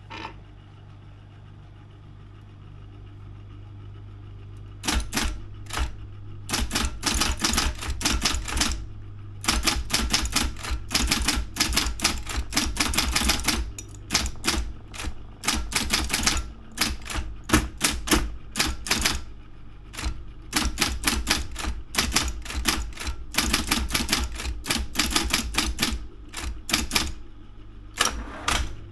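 Daro 202 electric typewriter being typed on. There is a steady low hum for about the first five seconds, then quick runs of key strikes with short pauses between them.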